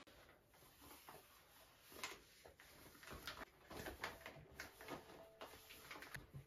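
Faint crinkling and clicking of rubber cleaning gloves on moving hands. The run of small crinkles grows busier about two seconds in, with a few brief squeaks of rubber.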